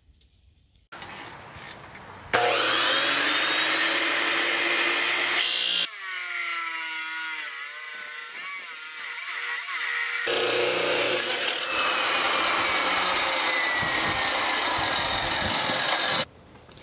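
Milwaukee abrasive chop saw cutting 2-inch square steel tubing. The motor starts about a second in, and from a couple of seconds in the abrasive wheel grinds loudly through the steel with a high whine. The sound changes partway through and cuts off suddenly near the end.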